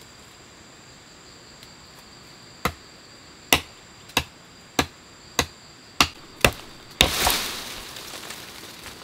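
Machete chopping through a small sapling at its base: seven sharp chops about two-thirds of a second apart, then a rush of rustling leaves as the cut sapling comes free. Insects keep up a steady high-pitched whine underneath.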